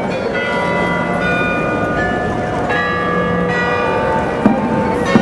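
Bells ringing a tune, many notes of different pitch struck one after another and overlapping as they ring on, with a couple of sharp knocks near the end.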